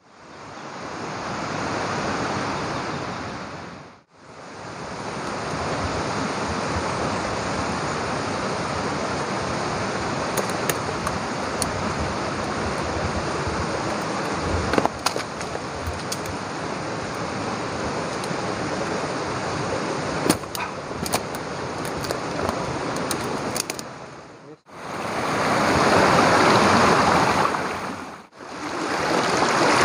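Stream water running steadily in a continuous rush, in several edited clips that fade out and back in about 4, 25 and 28 seconds in.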